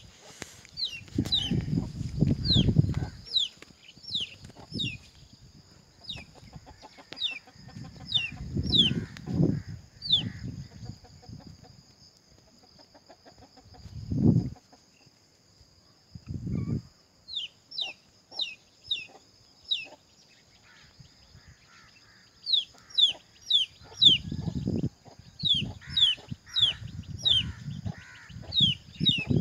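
Small birds give repeated short, falling chirps over a steady high-pitched insect drone. Loud low bursts come every few seconds and grow more frequent near the end.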